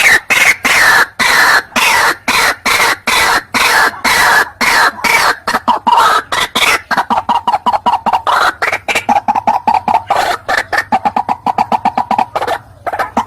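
White-breasted waterhen (ruak-ruak) calling: a long run of harsh, repeated croaking notes, quickening in the second half, with a brief pause near the end.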